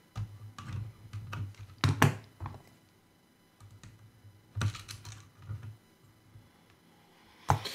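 Scattered small clicks and taps from fingers working small plastic drone parts loose and setting parts and tools down on a work mat, with a few sharper clicks about two seconds in, near five seconds and just before the end.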